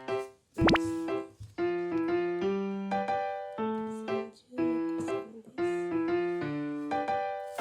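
Background piano music, a light melody of short notes, with a brief swooping sound effect about two-thirds of a second in.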